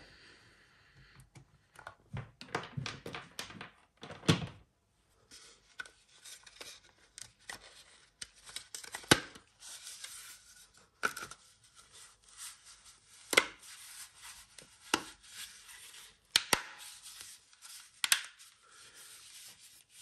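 Plastic clicks, knocks and rubbing as the JBL Link 10 speaker's fabric-covered outer shell is slid back over its inner chassis and pressed home onto its circular pins. The clicks come at irregular intervals, with soft rubbing between them.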